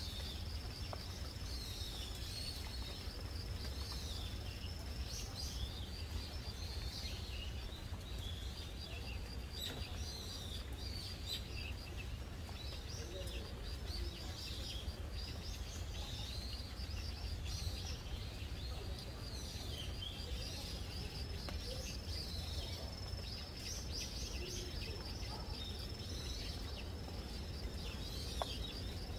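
Outdoor ambience of small birds chirping again and again over an insect's steady high trill, with a low wind rumble underneath.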